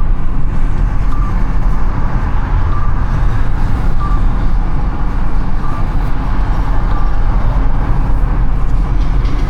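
A car driving through city traffic: a steady low road-and-engine rumble. A short, faint beep repeats about once a second, then comes twice more at longer gaps.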